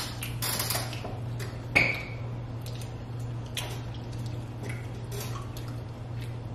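Scattered small clicks and taps of people eating from takeout containers with plastic utensils, over a steady low hum.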